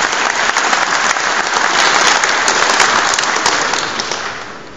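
Large audience applauding, dying away near the end.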